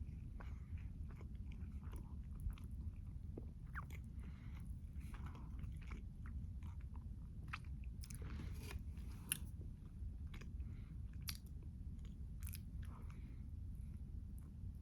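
Close-miked chewing and biting, with scattered crunches and wet mouth clicks over a low steady hum.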